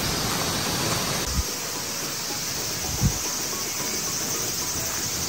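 Summer forest ambience: a steady high drone of insects over a soft hiss, with two dull thumps about a second and a half and three seconds in.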